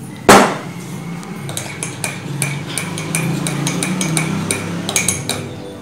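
A metal spoon beating the coffee, sugar and hot water mixture for dalgona coffee by hand in a mug, scraping and clinking against its sides in quick, uneven strokes. One loud knock comes near the start.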